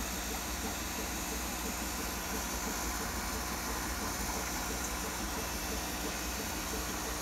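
Aquarium equipment running: a steady hiss over a low hum, with a faint, fast, regular pulsing.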